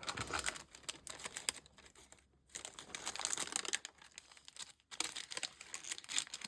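Paper packaging being handled, crinkling and rustling in irregular bursts, with two short pauses.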